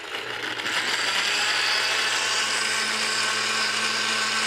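Countertop blender starting up and running steadily, pureeing chopped herbs, chilies, lime juice and water into a liquid seasoning. It comes up to speed within about a second, then holds an even motor hum under the whir of the blades churning the mixture.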